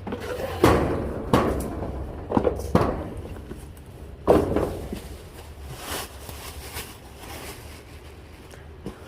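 A run of knocks and thuds as items are handled, moved and set down while boxes of goods are gone through, with the loudest knocks about a second in and again past the middle, then quieter rustling and handling.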